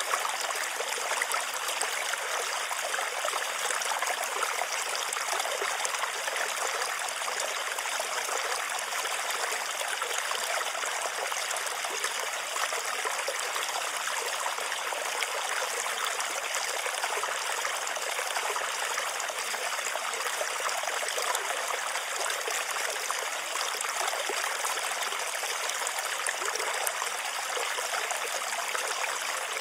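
Steady rain, an even hiss of many fine drops that holds at one level without a break.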